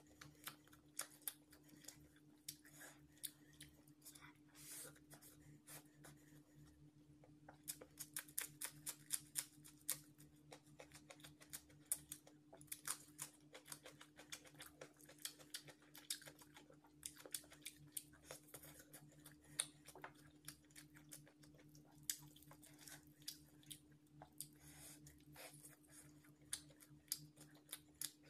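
Close-miked chewing and eating of chicken and biryani rice: irregular wet clicks and crackles, coming thick in clusters, with no words, over a faint steady hum.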